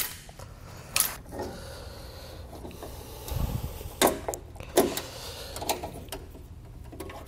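Hand work on trailer-light wiring: a sharp click at the start and another about a second in as vice grips clamp diodes onto spade connectors, then a dull thud and two louder knocks with scattered small clicks as a diode unit is handled.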